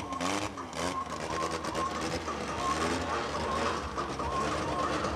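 Drag-racing VW Passat's engine running at low revs as the car rolls slowly, with a steady rhythmic mechanical chatter.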